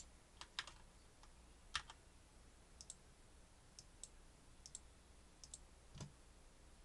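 Faint, irregularly spaced computer mouse clicks, about a dozen, the sharpest near two seconds in and near the end, over a low steady hum.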